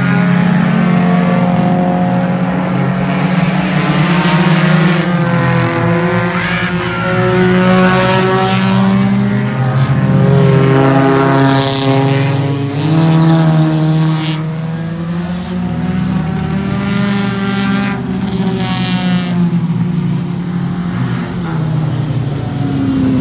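Several dirt-track race car engines running at racing speed, their pitch rising and falling as the cars accelerate and lift around the oval, with more than one engine heard at once.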